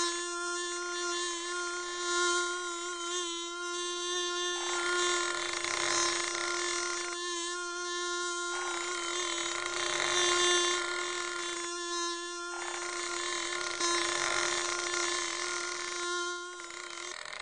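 Animated bee's buzzing wings: a steady hum on one unchanging pitch, thinning out briefly about every four seconds and stopping just before the end.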